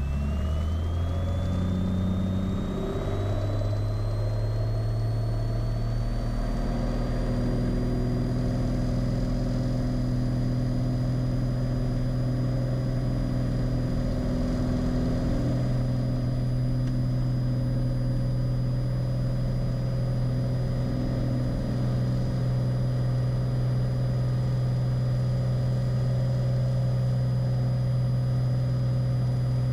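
Cessna 182 Skylane's piston engine and propeller at takeoff power during the takeoff and initial climb: a loud steady drone. A faint high whine rises over the first several seconds, then holds steady.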